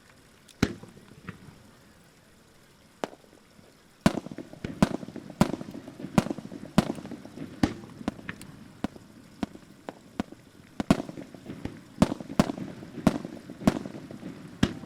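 Aerial firework shells bursting in a starmine, the rapid-fire sequence of a Japanese fireworks display. A single sharp bang comes about half a second in and another near three seconds. From about four seconds on, bursts follow more than one a second over a continuous rumble.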